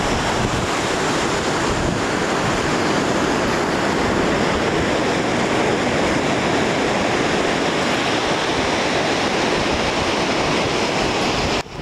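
Ocean surf breaking on a beach: a steady, dense rush of waves that cuts out briefly near the end.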